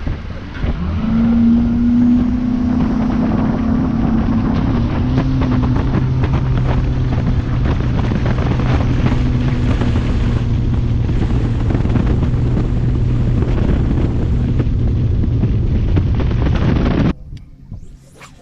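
Bass boat's outboard motor running at speed, with wind buffeting the microphone. The engine note climbs over the first couple of seconds, holds steady, and cuts off abruptly near the end.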